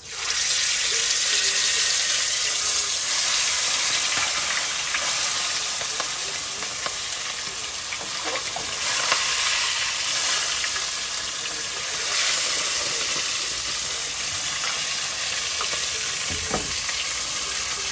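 Seasoned beef cut searing in very hot oil in a deep pot: a loud sizzle that breaks out the instant the meat goes in and holds steady, swelling twice as the meat is moved in the oil.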